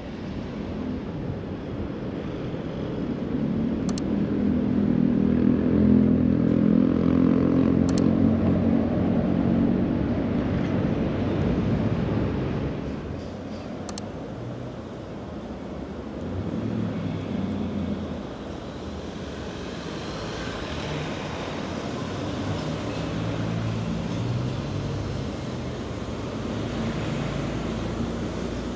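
A motor vehicle passing close by on a city street, its engine sound swelling for a few seconds and then fading, over steady traffic noise.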